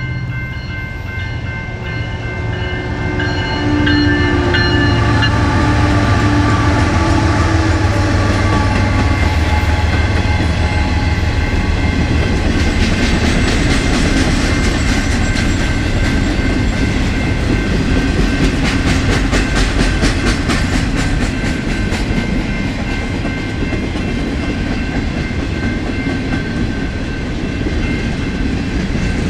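Empty BNSF freight train passing. Its horn sounds as a chord of steady tones that fades out within the first few seconds, then the diesel locomotives go by with a deep, steady rumble. Partway through, rapid clickety-clack starts as the empty cars' wheels roll over the rail joints.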